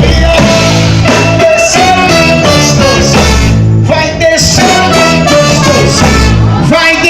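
Pagode music playing: a samba-style song with singing over bass and percussion.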